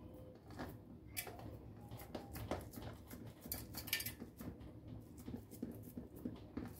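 Hands pressing and rolling raw minced meat into long kebab shapes on a perforated stainless-steel tray: faint, irregular soft squishes with light taps and clicks against the metal.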